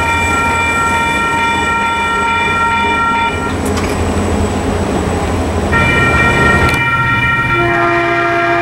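Train horns sounding chords of several steady tones over the low rumble of a passing passenger train. The horn breaks off a little over three seconds in and starts again about two seconds later, with a lower chord joining near the end.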